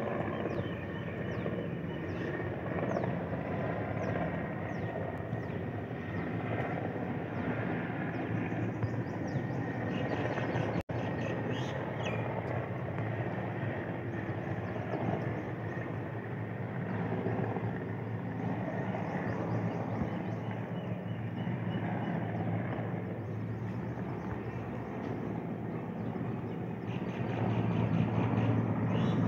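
Helicopter rotor and engine noise, a steady low rumble heard from a distance, growing louder near the end as the helicopter comes in to land.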